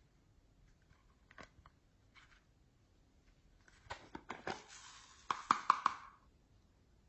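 Slime being mixed and squished by hand: a few faint clicks, then, from about four seconds in, two seconds of crackling and squelching that ends in a quick run of sharper pops.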